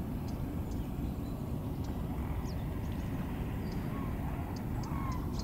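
Open-air ambience: a steady low rumble, with scattered short high chirps and two brief whistled bird calls about four and five seconds in.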